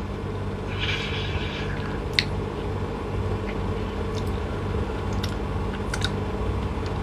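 A person chewing and biting soft food, with a short rustle about a second in and a few small mouth clicks and smacks over a steady low hum.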